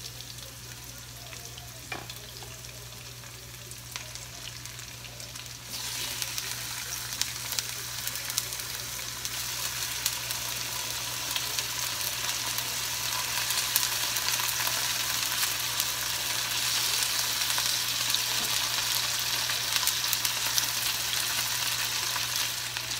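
Raw chicken pieces sizzling as they go into hot olive oil in a frying pan with garlic and onion. The sizzle starts suddenly about six seconds in and grows louder as more pieces are added, with small pops.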